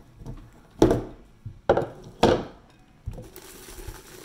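Sharp knocks and clunks, three in under two seconds, as a glass candy jar with a wooden lid is handled, followed near the end by faint rustling.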